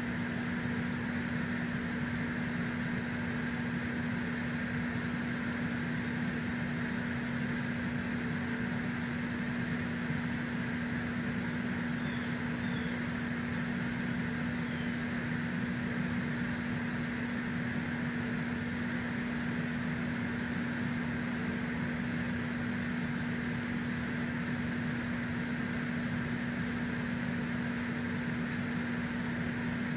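Steady mechanical hum with one constant low tone over an even hiss, unchanging throughout.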